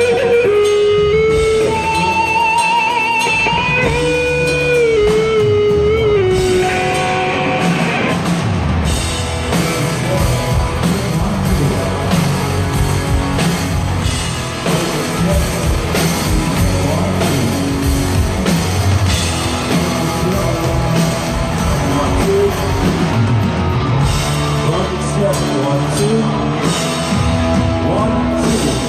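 Rock band playing live: an electric lead guitar holds a slow, bending melody with wide vibrato, and about seven seconds in drums and bass come in for the full band.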